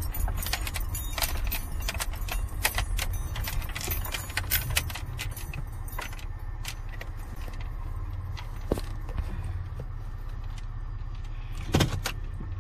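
Minivan rolling slowly with a low engine and road rumble, overlaid by a run of sharp clicks and light rattles that are thick at first and thin out after a few seconds.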